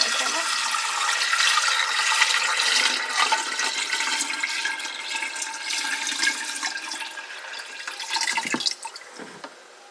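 Water poured from a plastic jug into the fill opening on top of a Tuttnauer autoclave, a steady splashing stream that tapers off and stops near the end as the jug runs empty.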